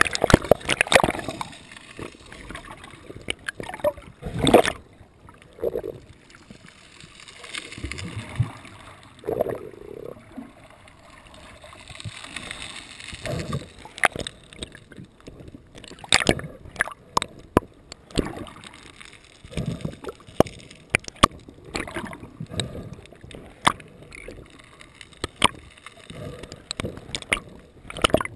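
Water sloshing and gurgling close to the microphone, with irregular swells and scattered sharp knocks and splashes.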